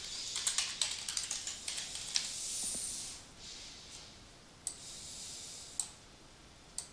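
Computer keyboard typing: a quick run of keystrokes, then three separate clicks in the second half, over a faint hiss.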